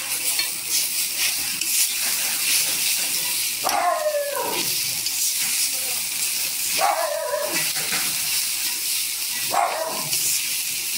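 Onion-coconut chammanthi sizzling and frying in a metal kadai while a spatula stirs it, a steady hiss throughout. A dog barks three times in the background, about four, seven and ten seconds in, each a drawn-out call falling in pitch.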